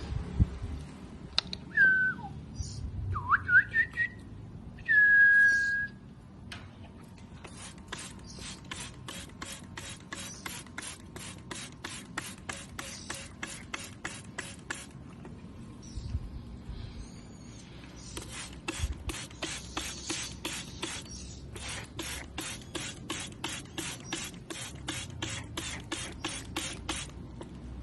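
A few whistled notes that glide in pitch, the last one held for about a second. Then a spray bottle mists water over a pet bird in quick, even squirts, about four a second, pausing briefly about two-thirds of the way through.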